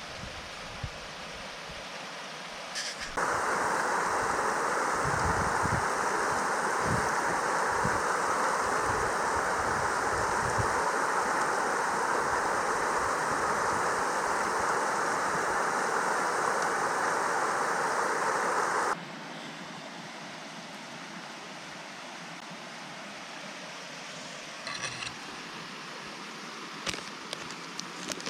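Mountain stream rushing steadily. About 3 seconds in it switches abruptly to a much louder, closer rush, and about 19 seconds in it drops back just as abruptly to a quieter, more distant wash. A few small clicks come near the end.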